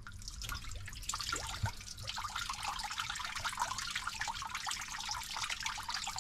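Coolant water trickling and dripping out of a Perkins Prima M50 marine diesel's engine block with the water-pump hoses loosened, as the cooling circuit drains during water-pump removal. The trickle becomes steady about a second in.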